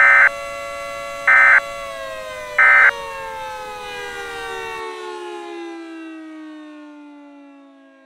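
Three short bursts of EAS end-of-message data tones, about a second apart, over a steady siren tone with many overtones. The siren then slowly winds down in pitch and fades out.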